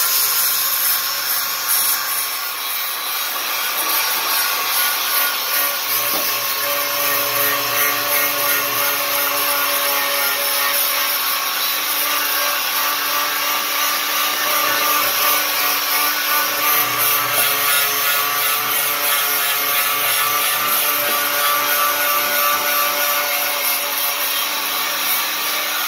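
Harbor Freight 11-amp angle grinder with a 40-grit flap disc running continuously, grinding thick old concrete off steel with light pressure. A steady motor whine sits under a harsh abrasive rasp that wavers slightly as the disc works across the surface.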